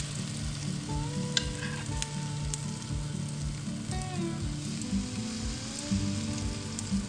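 Pancake batter sizzling in a hot oiled non-stick frying pan as more is spooned in, with a few sharp clicks of the metal spoon against the pan and bowl.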